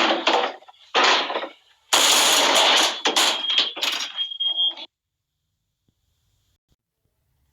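Three loud bursts of harsh, rustling noise, with a Nest Protect smoke alarm's high steady beep faintly under the last one. The sound then cuts off to dead silence.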